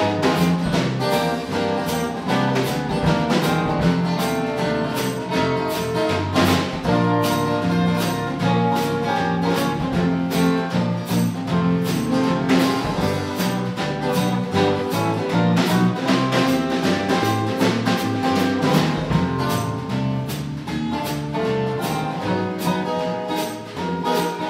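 Instrumental break of a small band playing a song: guitar and other instruments over a drum kit keeping a steady beat, with no singing.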